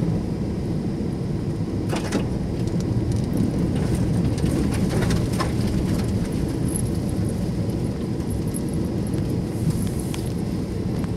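Car heard from inside the cabin, driving on a rough dirt track: a steady low engine and tyre rumble, with a few short knocks and rattles as it goes over bumps.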